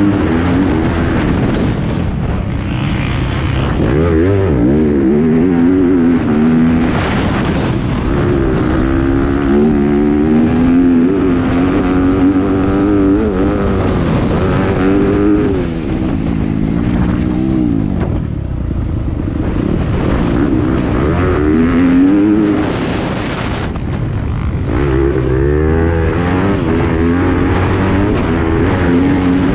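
2019 Yamaha YZ250F's single-cylinder four-stroke engine, heard from the rider's helmet, revving up hard and falling back again and again as the rider accelerates, shifts gear and shuts the throttle. There are short dips around the middle and a little past it.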